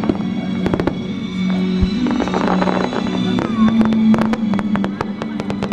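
Aerial fireworks shells bursting, with many sharp, irregular pops and crackles. Under them runs music holding low, sustained notes that change pitch a few times.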